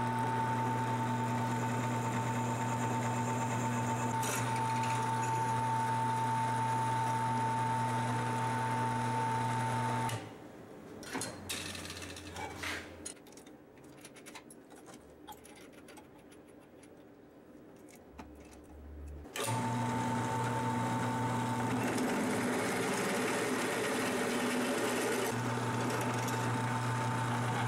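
Drill press motor running with a steady hum and whine while a bit drills into a steel bar. It shuts off about ten seconds in, and scattered clicks and knocks follow as the bit is changed in the chuck. It starts up again a little before twenty seconds in, now drilling with a larger bit.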